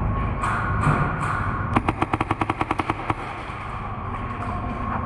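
Airsoft rifle with a Polarstar Jack high-pressure-air engine firing a rapid full-auto burst of about a second and a half, around 13 shots a second. Three softer single pops come before it.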